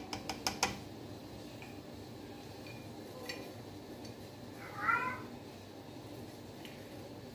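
A few quick taps of a measuring spoon against the rim of an aluminium pressure cooker, then about five seconds in a cat meows once, briefly.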